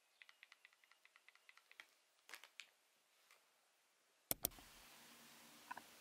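A quick run of small plastic clicks, about eight a second, then a few louder clicks as the plastic mount parts of a DJI Osmo Action 3 action camera are handled and fitted. About two-thirds through come two sharp clicks, then faint outdoor hiss with a brief bird chirp near the end.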